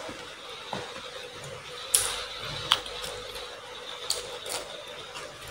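Close-miked eating sounds: a person biting and chewing raw lettuce, heard as a few sharp, crisp crunches and clicks spaced a second or so apart. A faint steady hum runs underneath.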